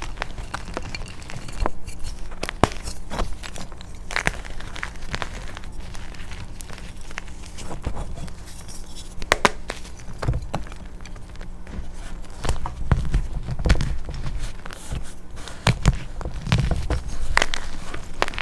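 Crunchy chalk coated in black paste being crushed: irregular crunches and crackles, with a few heavier dull thumps in the second half.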